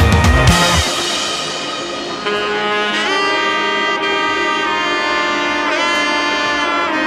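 Background music: a drum beat that drops out about a second in, followed by a melody of long held notes with pitch bends, saxophone-like in tone.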